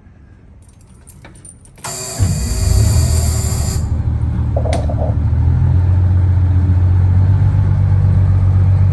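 Detroit Diesel 6-71 two-stroke diesel in a 1987 Crown SuperCoach cold-started: a few clicks, then the starter cranks for about two seconds while the engine catches, and it settles into a steady idle. A short beep about five seconds in.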